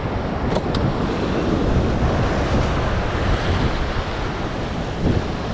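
Steady wind buffeting the microphone over surf washing against jetty rocks, with two light clicks just over half a second in.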